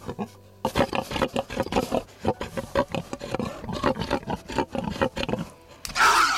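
Domestic pigs grunting close up in a rapid run of short grunts, ending in a short, loud snort.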